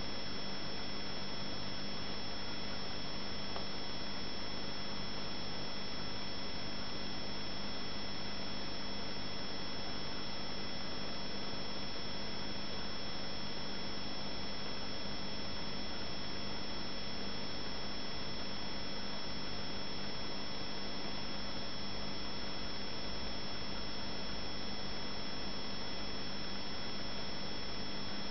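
Aquarium running steadily: a constant hum with the even hiss of an air-driven bubble curtain rising through the tank.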